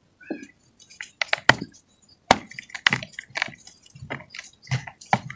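Dry clumps of red dirt being crushed and crumbled by hand: a string of irregular sharp crackles and crunches with short pauses between them.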